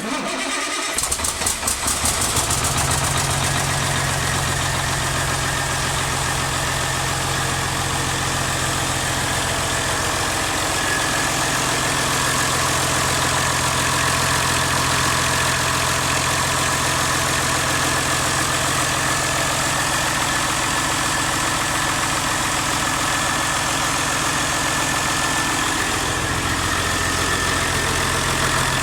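Rebuilt Caterpillar C13 inline-six diesel engine starting and running at a steady idle on its first run after repair, uneven for the first couple of seconds and then settling.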